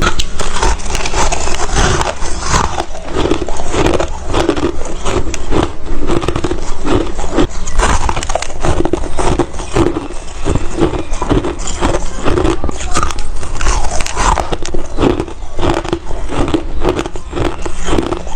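Ice being bitten and crunched between the teeth close to the microphone: a dense, irregular run of sharp cracks and crunches.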